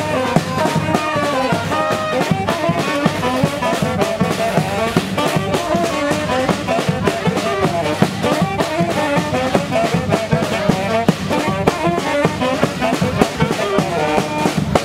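Brass band playing a lively carnival marchinha, horns carrying the melody over a steady, rhythmic drum beat.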